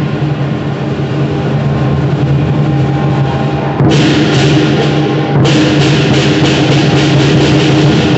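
Lion dance percussion: the big lion drum beating steadily, with cymbals clashing in a fast run from about four seconds in, breaking off briefly and starting again.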